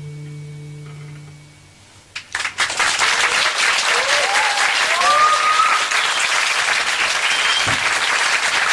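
An acoustic guitar's final chord rings and fades away, then after a brief hush the audience bursts into applause about two seconds in, with a few cheers rising over the clapping.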